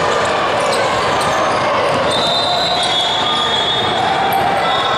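Basketball game sound: a ball dribbling on a gym floor under a steady murmur of spectator voices, with thin high squeaks from about two seconds in, typical of sneakers on hardwood.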